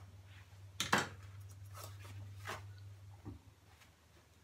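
A new ballpoint pen being scribbled on a scrap to start the ink flowing, a few scratchy strokes with a sharp knock about a second in, over a low steady hum.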